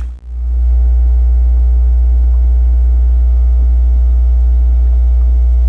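A loud, steady low hum with faint steady higher tones above it; it drops out briefly just after the start and then resumes.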